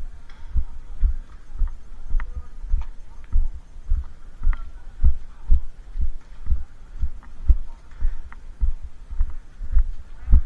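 Deep, even thumps repeating about twice a second, with faint higher sounds in the background.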